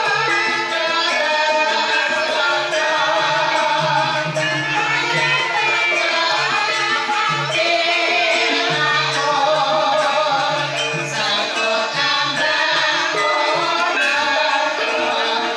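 Javanese gamelan ensemble playing a Banyumasan-style gending: bronze kettle gongs, gongs and drums in a continuous piece, with a voice singing over it.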